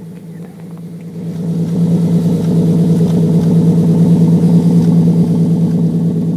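Triumph GT6's straight-six engine running with a steady exhaust note, growing louder about a second in and then holding steady.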